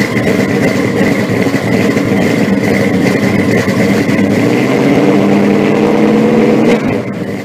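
Loud car engine running and revving, with a steady high tone above it; it drops back about seven seconds in and cuts off suddenly.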